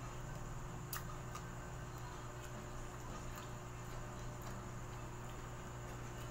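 Faint scattered clicks of eating small fruit by hand, picked up close by a clip-on microphone, with one sharper click about a second in, over a steady low hum.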